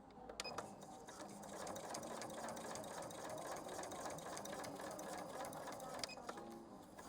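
Janome Memory Craft 5200 sewing machine stitching through eight layers of denim, running steadily and stopping about six seconds in.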